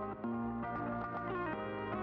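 Background music: soft held chords that change pitch twice.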